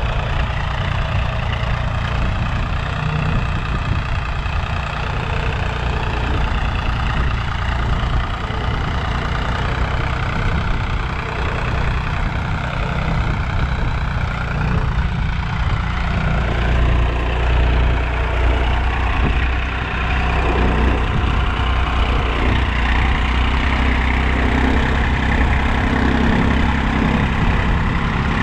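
Sonalika DI-745 III tractor's three-cylinder diesel engine running steadily under load as it pulls a trolley heaped with soil. It grows slightly louder in the second half as the tractor comes closer.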